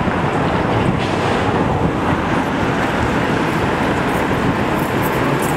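1946 St. Louis Car Company PCC electric streetcar rolling along the street rails as it approaches, a steady rumble of wheels on track mixed with city traffic.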